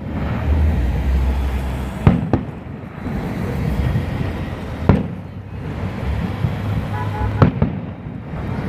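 Aerial firework shells bursting: sharp bangs, two in quick succession about two seconds in, another near the middle and one more near the end, over a continuous low rumble.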